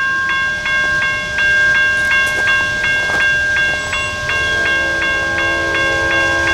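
Railroad grade-crossing warning bell ringing, about three strikes a second, as the crossing gates come down. About four seconds in, the approaching locomotive's Nathan K5LA five-chime air horn joins, a steady chord quieter than the bell.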